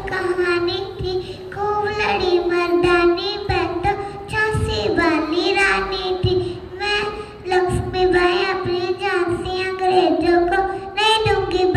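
A young girl singing solo into a microphone, in long held notes with short pauses between phrases.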